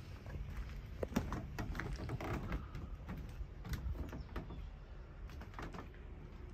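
Footsteps on loose rock and gravel: irregular scuffs and clicks a few times a second over a low rumble.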